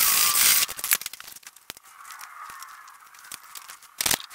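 A hand file rasping on the steel steering spindle of a lawn tractor, filing the shaft down so the E-clip will fit; it stops within the first second. Light scattered clicks follow, and a sharp knock comes near the end.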